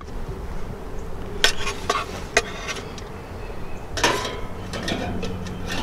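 Metal grill tongs clinking and scraping against a charcoal kettle grill's wire cooking grate as thick ribeye steaks are lifted off: a handful of sharp metallic clinks, the loudest about four seconds in.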